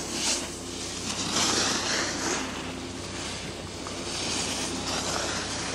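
Ski edges hissing and scraping on hard snow as a skier carves a run of turns, in three swells of about a second each.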